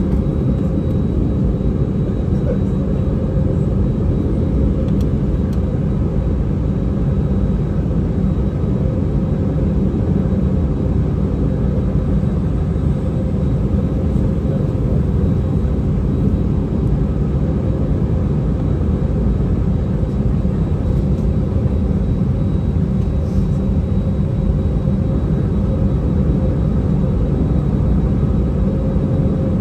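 Airbus A319 airliner heard from inside the cabin: steady engine and airflow noise, a constant low rumble with faint steady tones, unchanging throughout.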